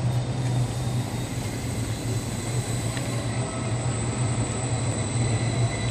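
An Edinburgh Trams CAF Urbos 3 tram passing close at low speed: a steady low hum with a faint, steady high-pitched whine above it.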